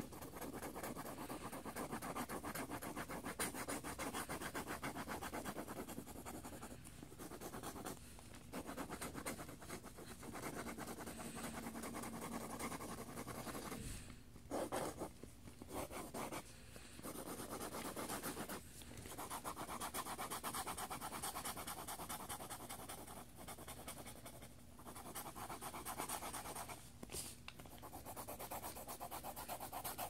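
Mechanical pencil lead scratching rapidly back and forth across lined notebook paper laid on a binder, shading it in with a continuous scribble broken by a few short pauses.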